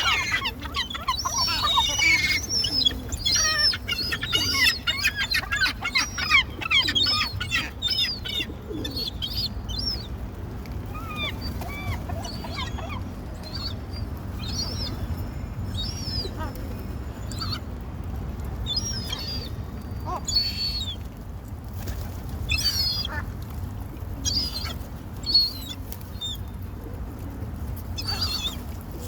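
Birds calling: a busy run of quick chirps for the first eight or nine seconds, thinning to scattered calls for the rest, over a steady low rumble.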